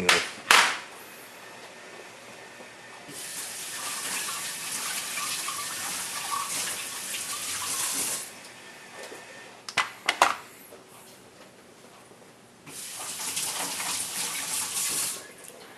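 Tap water running onto a gyuto kitchen knife in two spells, about five seconds and then about two and a half seconds long, rinsing off the lower-grit whetstone particles before moving to the next stone. A few sharp clicks come between the two spells.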